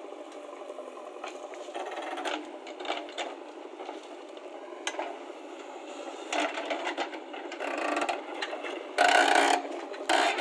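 JCB 3DX backhoe loader digging: its engine and hydraulics running while the bucket scrapes and rattles through dry soil, with short clatters throughout. A louder burst of noise comes about nine seconds in.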